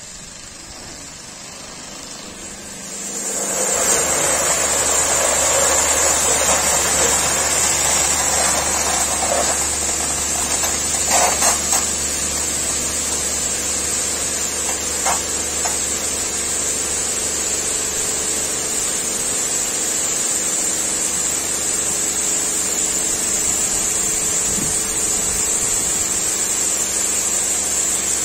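Touchless car-wash gantry's high-pressure water jets spraying onto a foam-covered car at the water rinse stage. The spray starts about three seconds in as a loud, steady hiss over the steady hum of the pump.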